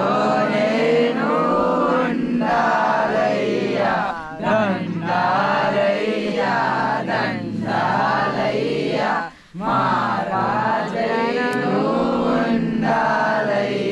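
A Telugu film song sung by a male chorus in a slow, chant-like melody, the voices pausing briefly between phrases.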